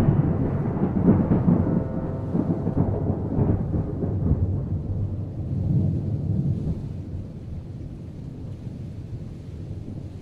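A deep rumble of thunder, loudest in the first few seconds and slowly dying away.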